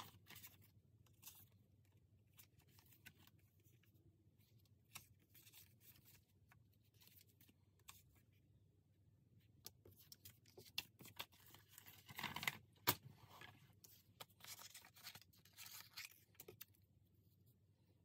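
Faint handling of paper cards and small scissors snipping card stock, cutting out little paper butterflies: scattered light rustles and ticks, with a louder cluster about twelve seconds in and a run of small snips after it.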